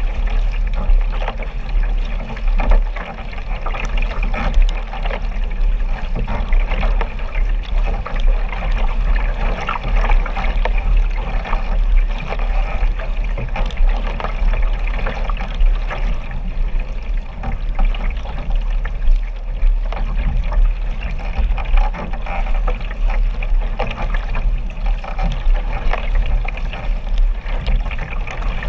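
Water sloshing and splashing close to the microphone as a paddled sprint kayak moves through a lake, with the splash of paddle strokes and a steady low rumble of water and wind.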